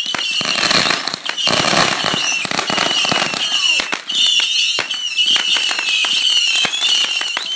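Ground fountain firework spraying sparks with a hissing rush that is strongest in the first three seconds, over steady crackling and sharp pops.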